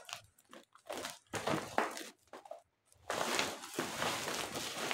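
Plastic packaging crinkling and rustling as it is handled and crumpled, in irregular short bursts, then a longer unbroken stretch of rustling in the second half.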